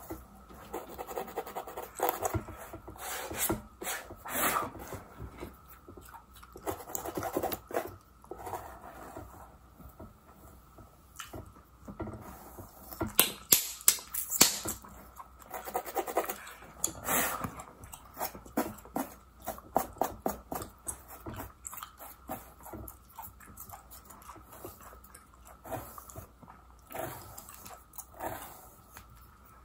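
Close-miked scratching of a mannequin's scalp with the teeth and metal pin tail of a plastic tail comb and with fingernails, mixed with gum chewing and smacking: irregular scratches and small wet clicks, with a run of sharper, louder clicks about halfway through.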